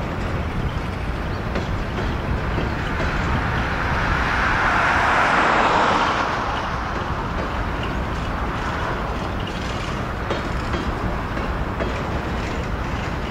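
Loaded covered hopper cars of a Norfolk Southern grain train rolling steadily past. A road vehicle passes close by, its tyre noise swelling and fading between about four and six seconds in.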